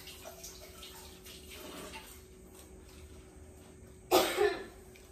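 A person coughs about four seconds in, two quick harsh bursts close together.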